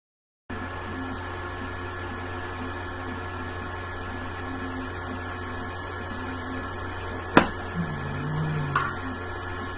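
Steady electrical hum in a small room, with one sharp click about seven seconds in, then a brief low hum lasting about a second and a fainter click.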